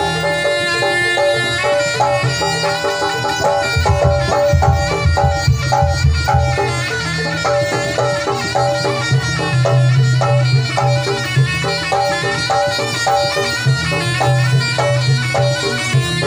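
Live jaranan music: a shrill, reedy double-reed shawm (slompret) plays a melody over a steady, rhythmic beat of drums and percussion.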